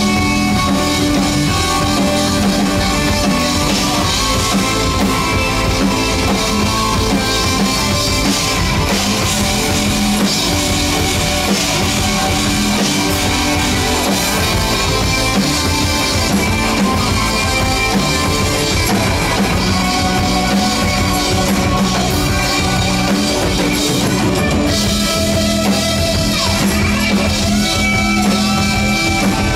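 Live progressive rock band playing an instrumental passage: drum kit, electric guitar, bass and keyboards.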